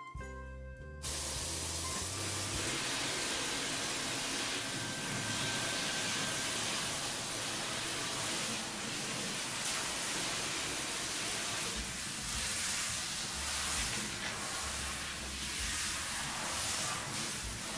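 Hand-held shower head spraying water onto a dog's coat in a plastic grooming tub: a steady hiss of running water that starts about a second in as background music cuts off.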